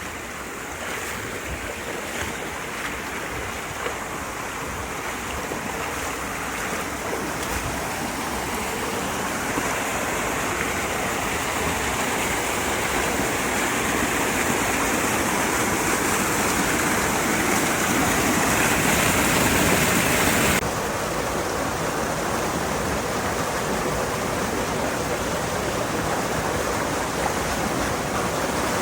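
Rushing water of a mountain headwater stream, a steady hiss that grows louder over the first two-thirds, then drops suddenly to a lower level about twenty seconds in.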